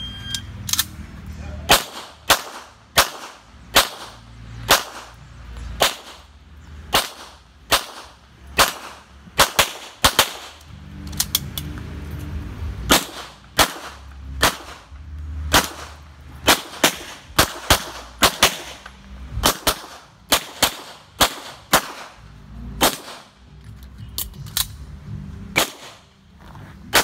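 A shot timer's short start beep, then a long string of gunshots from a practical shooting course of fire, about forty shots fired mostly in quick pairs with short pauses between groups.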